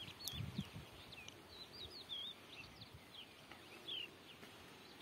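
Faint birdsong: many short chirps and curling whistles from small birds, coming quickly one after another, with a brief low sound about half a second in.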